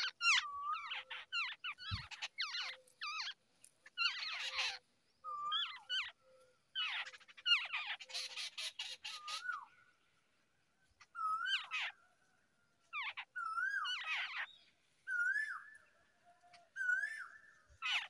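Jungle babblers calling at the nest, the nestlings begging to be fed: quick squeaky notes and harsh, wheezy chatter, then after a short pause a run of rising-and-falling whistled notes.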